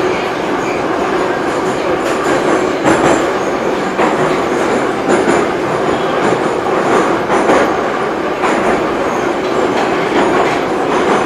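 Running noise heard inside the car of a moving 81-717.5/714.5 Moscow Metro train. It is a steady, loud rumble of wheels on rail with a constant hum and occasional faint clacks.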